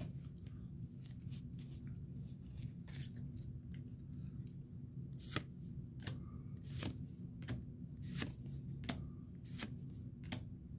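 Pokémon trading cards being flicked through by hand: a string of soft, irregular card flicks, about one or two a second, over a steady low hum.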